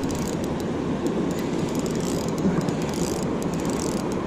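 Steady rushing of water pouring through a dam tailrace, with faint light clicks over it.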